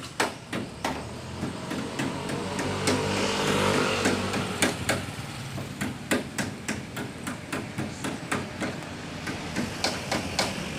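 Repeated hammer blows, sharp and irregular, about two a second, with an engine swelling and fading underneath around the fourth second.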